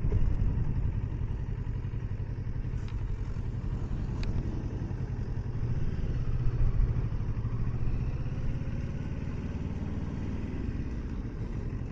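2020 Kawasaki Versys 650's parallel-twin engine running steadily as the bike rides along, swelling slightly about halfway through.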